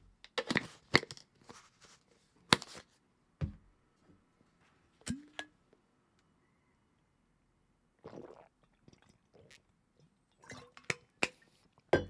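Mouth sounds of a man working a dry scoop of creatine powder down: scattered smacking and chewing clicks, a few heavier swallows, then a drink and swallowing with more lip smacks near the end.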